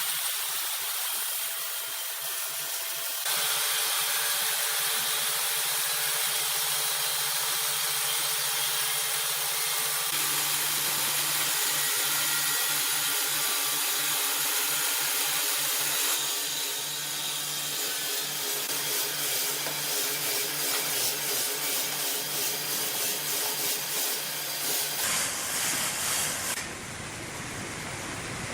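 Sawmill machinery running and sawing timber: a steady hissing, grinding noise that changes abruptly several times.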